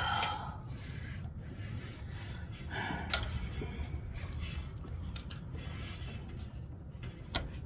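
A sharp breath at the start, then a low steady rumble of wind on the microphone, with a few small clicks about three seconds in and near the end.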